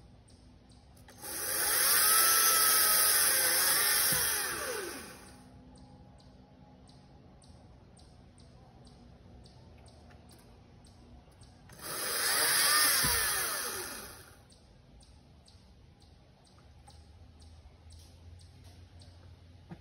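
Battery-powered Bad Boy chainsaw run in two bursts while cutting firewood limbs, first about four seconds, then about two seconds. Its electric whine falls in pitch as the chain winds down at the end of each burst.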